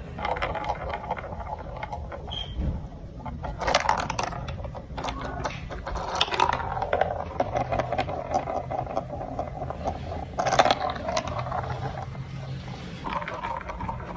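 Marbles rolling and clicking through a plastic building-block marble run: a steady rolling rattle with many small clicks, and two sharper clacks, one about four seconds in and one near the end.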